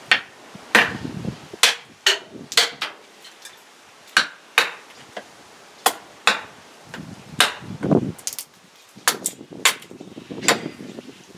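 Gränsfors Bruks mini hatchet chopping into a small wooden billet held upright on a chopping block, roughing out a spoon blank: about fifteen short, sharp chops at an uneven pace.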